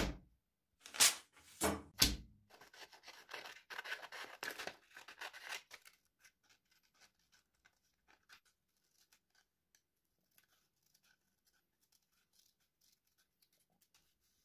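Paper handled and torn: three loud knocks about a second in, then a few seconds of dense paper rustling and tearing. After that, faint light snips of scissors cutting a sheet of paper.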